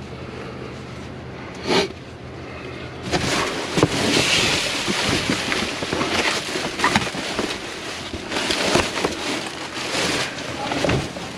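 Rubbish being rummaged through: plastic bags and packaging rustling and crinkling, with scattered knocks, louder from about three seconds in.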